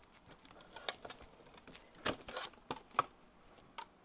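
Scattered light metallic clicks and clinks of a half-inch wrench and socket working on steel bolts, as the transmission-side bolts of an engine case are loosened and taken out.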